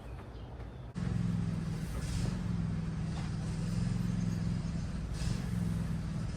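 A vehicle engine idling steadily, starting abruptly about a second in, with a couple of brief scraping or clattering noises on top.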